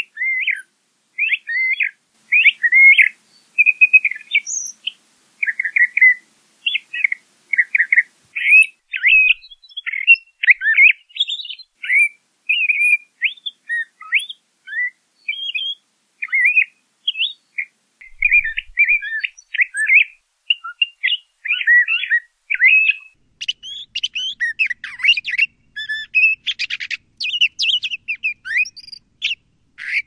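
A songbird of the mockingbird and thrasher family singing a long, varied song of short whistled and chattering phrases in quick succession, with hardly a break. Toward the end, harsher, scratchier notes join in.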